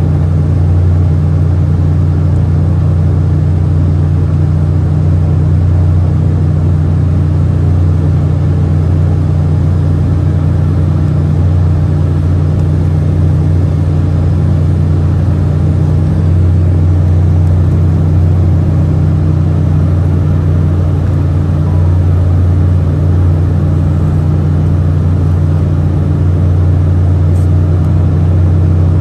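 Cabin noise of an Embraer E190 climbing out after takeoff: its wing-mounted GE CF34-10E turbofan engines running at climb power, a loud, steady low drone.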